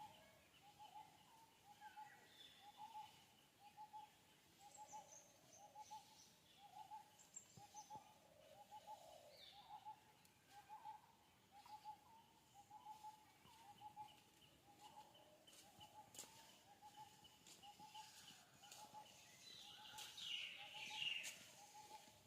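Faint bird calls: a short hooting note repeated steadily about twice a second, with scattered higher chirps and a brief louder flurry of higher calls near the end.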